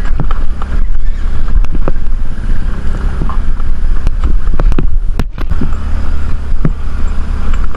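Loud, steady low rumble with wind buffeting the microphone, broken by scattered knocks and clatters.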